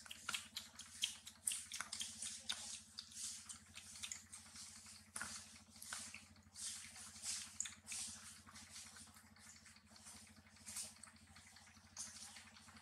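Faint, irregular wet smacking and clicking of a macaque chewing soft yellow fruit, over a steady low hum.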